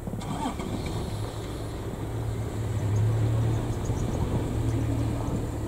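A vehicle engine idling, a steady low hum that swells a little around the middle.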